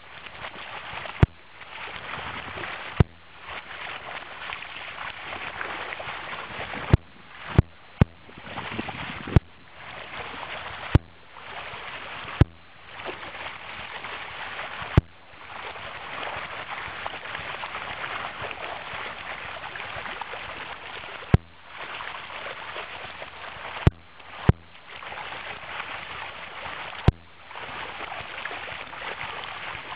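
Shallow, fast stream rushing steadily over gravel. About a dozen sharp, very short clicks cut through it at irregular intervals, each followed by a brief drop in the water sound.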